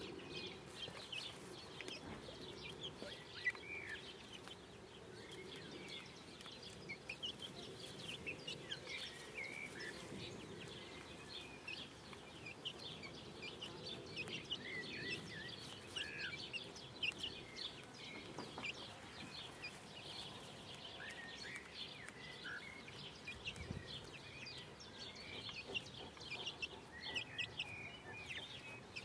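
Five-week-old bantam Wyandotte chicks peeping: a dense, steady scatter of short high cheeps from several birds, often overlapping.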